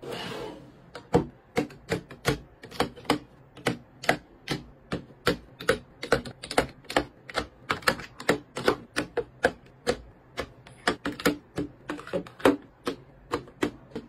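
Foundation bottles being set down one after another on a clear acrylic tiered shelf: a quick run of sharp clacks, about two a second, after a brief rushing noise at the start.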